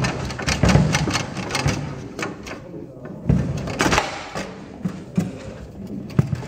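Table-football game in play: the ball is knocked by the player figures and clacks off the table walls while the rods rattle. Irregular sharp knocks come thick during the first second or so, then as a few louder single strikes later on.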